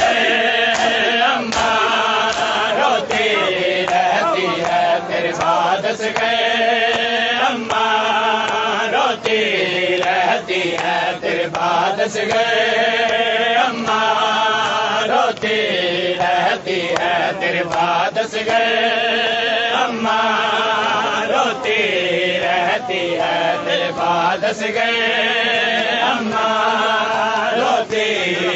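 Men chanting a noha, a Shia mourning lament, together in repeated sung phrases, with sharp slaps of hands on bare chests (matam) over the chant.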